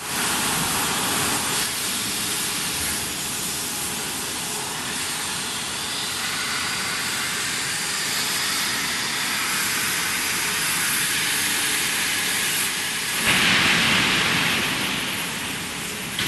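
Handheld gas torch flame hissing steadily as it heats polyethylene lining on a steel agitator shaft, louder for about two seconds near the end.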